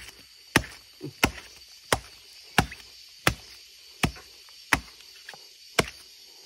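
Machete blade chopping repeatedly into the earth around a sweet bamboo shoot to dig it out: about nine sharp strikes, roughly one and a half a second.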